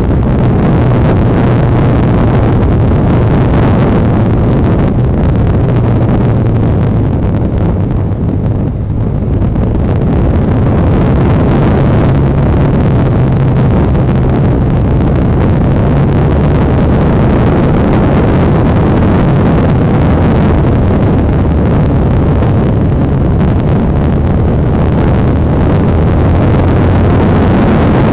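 Honda NX650 Dominator's single-cylinder four-stroke engine running steadily while riding, heard from on the bike. The sound drops off briefly about eight seconds in, then picks up again.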